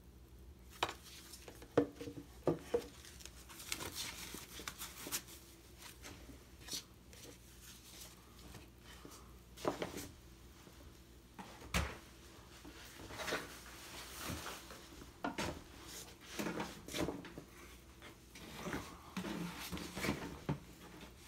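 Handling noises at a workbench: scattered clicks, light knocks and rustling, with the rotary tool not running.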